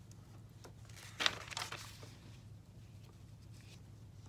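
A sheet of paper rustling as it is handled and set down, a short cluster of crinkles about a second in, over a low steady hum.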